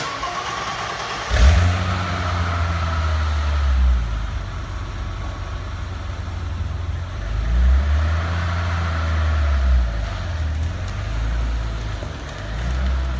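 A 1990 BMW 325i's 2.5-litre straight-six is cranked by the starter on a cold start, catches about a second and a half in, and settles into a steady idle. About halfway through, the engine note rises and falls a few times as the car pulls away under light throttle.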